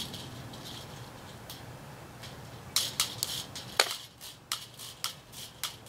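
Tin snips cutting across quarter-inch hardware cloth mesh: a run of short, sharp metallic snips, mostly in the second half, after a quieter start.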